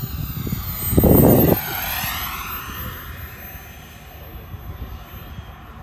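Model jet's turbine engine passing close by: a loud rush about a second in, then a high whine that falls in pitch as it goes past and fades away.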